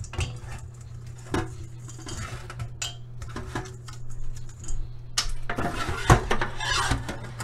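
Stainless steel colander clattering in a steel sink as pieces of fresh coconut are turned over and knocked about in it by hand: scattered clinks and knocks, some with a short metallic ring, getting busier in the second half.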